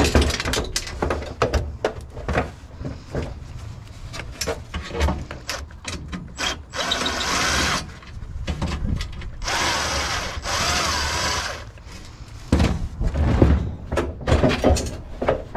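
Cordless drill running in three short bursts of about a second each, about seven to eleven seconds in, taking screws out of a table saw's housing. Clanks and knocks of tools against metal parts come throughout and are loudest near the end.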